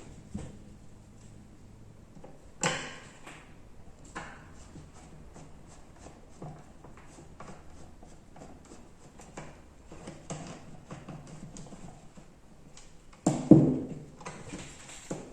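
Clicks and knocks of hand tools and small metal parts being handled while a spring air rifle is taken apart, with a sharp knock about three seconds in and a louder cluster of knocks near the end.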